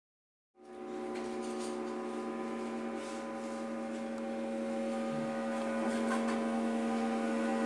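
Bowed metal percussion: a bow drawn across the metal sustains a steady drone of several held, unrelated ringing tones. It comes in about half a second in and slowly grows louder.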